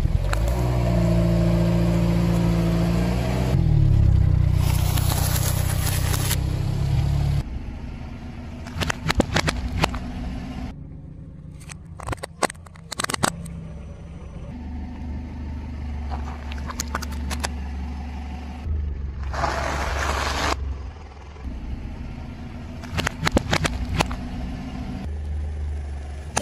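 A car engine running at low speed, loud for the first several seconds and quieter after, while a tyre rolls over small plastic items on asphalt: a strip of paint pots, a candy-filled toy tube and mustard tubes. Sharp plastic cracks and crunches come in several separate clusters, with a couple of short hissing squishes.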